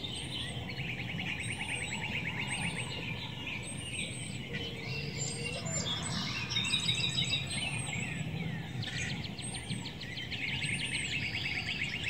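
Birds chirping and trilling, with one short high call repeated about once a second.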